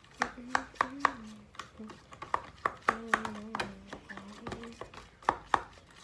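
Homemade slime being worked by hand, giving a run of irregular sharp taps and smacks. A low pitched tone is held under some of them.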